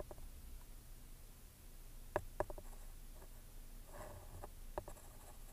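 Quiet handling at a sewing machine: a few faint clicks and taps, with a soft rustle about four seconds in, as fabric pieces are set under the presser foot.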